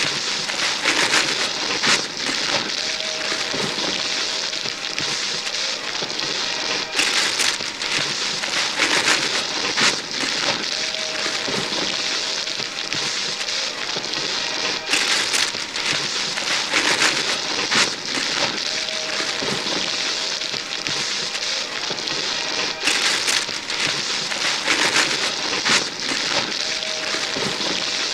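Wrapping paper being ripped and crumpled off gift boxes by hands tearing frantically: a dense crackling rustle broken by sharper tears. The same short passage repeats about every eight seconds.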